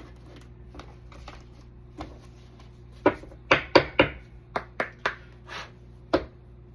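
Tarot cards being shuffled and handled: a run of sharp card slaps and flicks, sparse at first, bunching up a little past the middle, with one more near the end.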